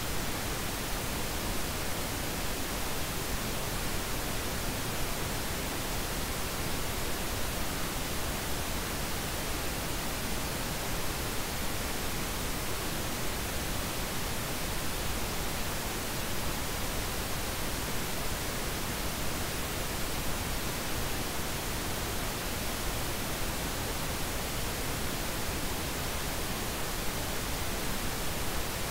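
Steady, unchanging hiss of pink noise spread evenly across the whole range, with no tones, beats or changes.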